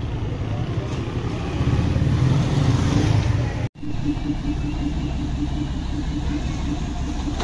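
Street traffic noise with vehicles running, then after a cut about four seconds in, the engine of a truck-art decorated bus running steadily with an even pulsing as the bus moves past.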